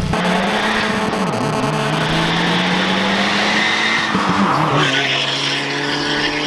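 A 2017 Subaru WRX's turbocharged flat-four, with a new aftermarket exhaust, accelerating hard in a pull. The engine note climbs, dips briefly about a second and a half in, climbs again, then falls back to a steady lower note near the end.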